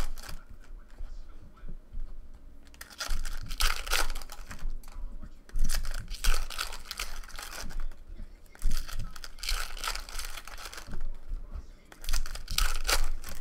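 Foil trading-card pack wrappers crinkling and tearing as packs are ripped open and handled by hand, in irregular bursts of crackling.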